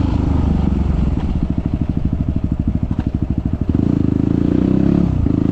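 Yamaha WR250 supermoto's single-cylinder four-stroke engine idling, with even firing pulses beating plainly for a couple of seconds mid-way. There is a brief drop in pitch near the end.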